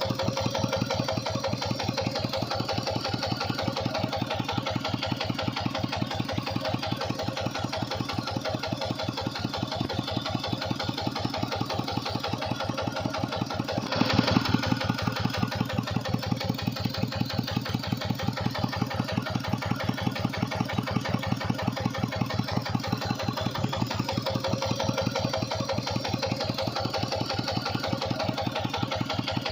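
Small engine running steadily with rapid, even firing pulses, with a brief louder surge about halfway through.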